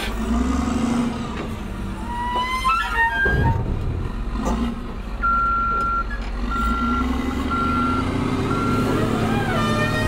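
Wheel loader's diesel engine running under load as it raises and tips its bucket, with a rising whine a few seconds in. From about five seconds its reversing alarm beeps steadily, a little more than once a second, as the machine backs away.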